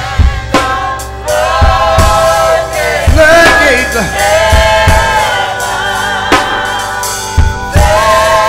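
Live gospel music: voices singing long held notes, backed by a drum kit.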